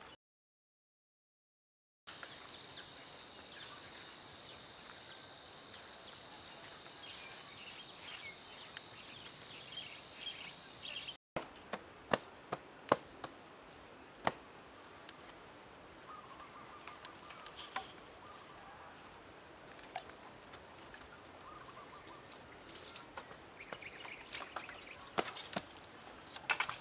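Outdoor ambience of insects and birds: a steady high insect tone with scattered chirps, after about two seconds of silence at the start. Partway through there are a handful of sharp knocks from hand work.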